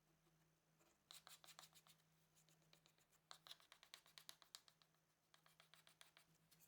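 Near silence, broken by faint rapid light clicks and scratches in a few short clusters: about a second in, again from about three to four and a half seconds, and near the end.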